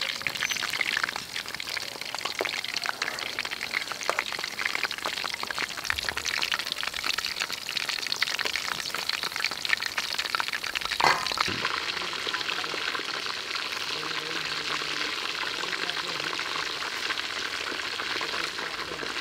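Battered chicken drumsticks deep-frying in a wok of hot oil: a dense, steady crackle and sizzle of bubbling oil. A single sharp click comes about eleven seconds in.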